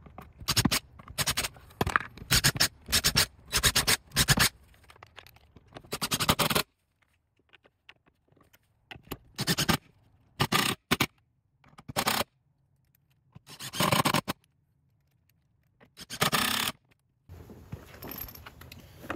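Cordless drill running in short bursts, boring pilot holes into a wooden mounting block. Then it drives lag screws home through a plastic bracket with a socket bit, in several separate runs of under a second each.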